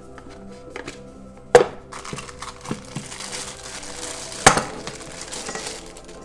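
Packaging and parts of an unboxed diffuser being handled: crinkling rustle with two sharp knocks, about a second and a half and four and a half seconds in, over soft background music.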